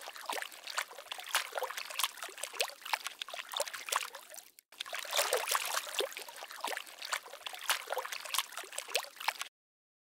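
Water bubbling and trickling: a rapid, irregular run of small gurgles and splashes. It breaks off briefly about halfway, resumes, then stops shortly before the end.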